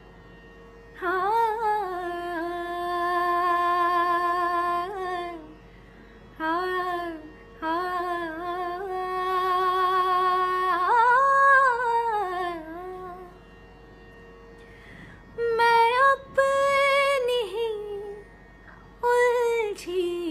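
A solo voice singing a slow wordless melody, humming or an alaap, in long held notes with vibrato and gliding pitch. It comes in several phrases with short pauses between them.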